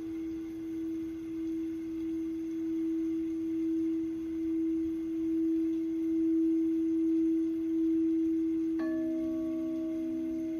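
Sound bowl holding one steady ringing tone that grows louder in slow, wavering pulses. About nine seconds in, a second bowl is struck and rings with a lower tone alongside it.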